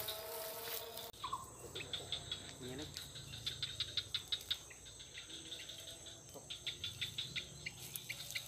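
Insects chirping in a rapid, pulsing rhythm over a steady high-pitched buzz.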